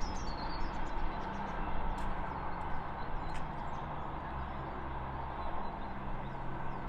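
Diesel multiple-unit train, believed to be a Class 158, running on the line nearby with a steady low engine drone. Small birds chirp briefly now and then.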